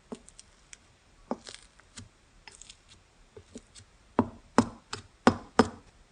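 Slime being pressed and poked by hand, making a series of sticky clicks and pops, with five louder pops close together near the end.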